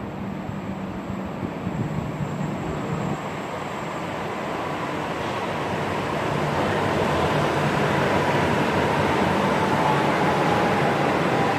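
Stuttgart Stadtbahn light-rail train approaching, its running noise growing steadily louder over several seconds, with a faint whine that falls slightly in pitch near the end.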